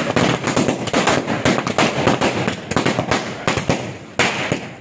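A 100-wala string of firecrackers going off: a rapid chain of sharp bangs, many a second, easing briefly about four seconds in before another loud burst.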